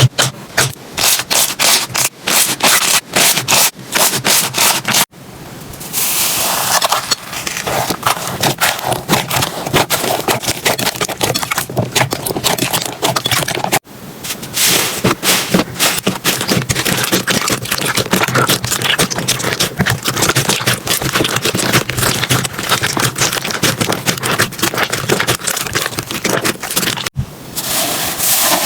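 Slime being pressed and worked by hand close to the microphone, giving dense crackling and clicking. The sound breaks off sharply about 5, 14 and 27 seconds in, where one slime clip cuts to the next.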